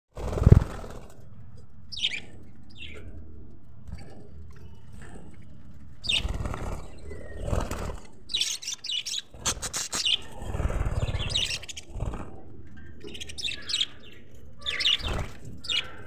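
Budgerigars chirping in short, high calls again and again, over low thumps and rustling, the loudest thump about half a second in.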